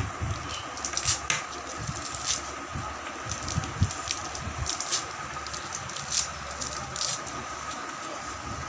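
Fresh spinach stems and leaves being sliced against an aruvamanai, a curved floor-mounted kitchen blade, and picked apart by hand: irregular crisp snips, snaps and leafy rustling, with a few soft knocks. A faint steady tone runs behind.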